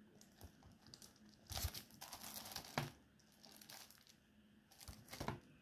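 Plastic shrink-wrap on a Blu-ray case crinkling as the case is handled and turned over, in two short spells with a soft knock or two.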